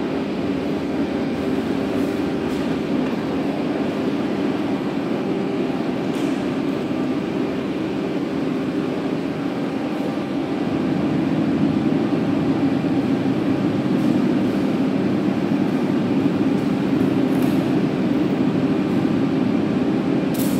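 A machine running steadily, a continuous low drone with a faint steady hum, growing slightly louder about halfway through.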